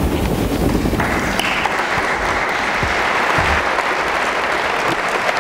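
Audience applauding. The applause starts abruptly about a second in, after a low rumble, and continues steadily.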